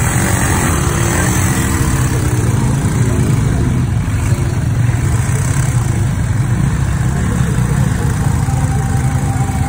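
Small motorcycle engines running at idle, a steady low drone.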